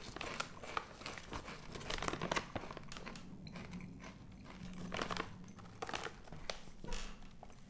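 Foil chip bag crinkling and Doritos tortilla chips crunching as they are bitten and chewed: an irregular run of small crackles and crunches.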